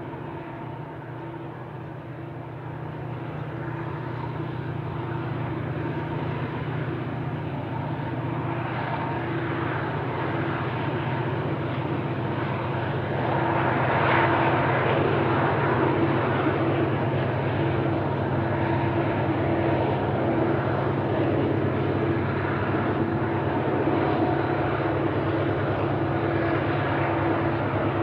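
Diesel locomotives at the head of a loaded coal train, running with a steady low engine drone. They are pulling upgrade with helpers attached, and the drone grows louder as they approach, most sharply about halfway through.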